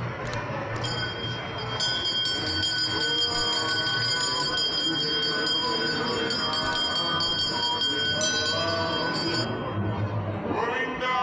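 Puja hand bell rung continuously during a Hindu temple offering: a steady high ringing, renewed by repeated strikes, starts about a second in and stops abruptly near the end, with voices underneath.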